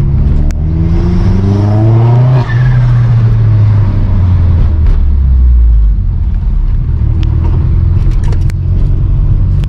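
Vauxhall Astra H VXR's 2.0 turbo four-cylinder engine revving, its pitch climbing for about two seconds and dropping back about five seconds in before running steadily, with a leaking recirculation (blow-off) valve making the 'turkey noise'.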